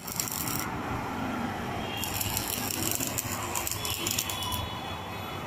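Metal-workshop yard ambience: a steady din with repeated metallic rattling and clinking.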